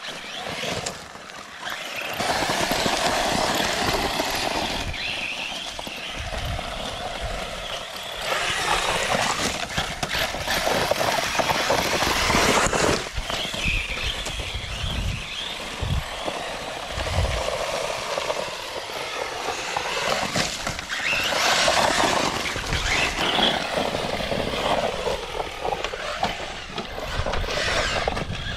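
Arrma Talion RC truggy tearing over loose volcanic gravel: its brushless motor whining, the pitch dipping and rising again every few seconds with the throttle, over the steady crunch and spray of tyres throwing gravel.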